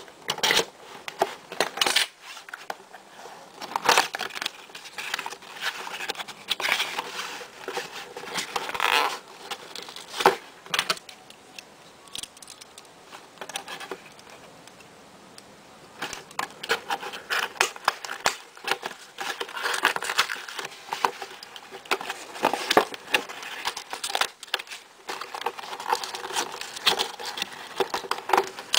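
Cardboard toy box and the plastic packaging inside it being handled and worked open: scraping, crinkling and sharp clicks and knocks, with a quieter stretch about halfway through.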